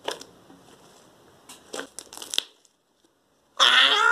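Homemade slime squeezed and kneaded by hand, giving a few short crackling squishes. Near the end, a loud drawn-out scream.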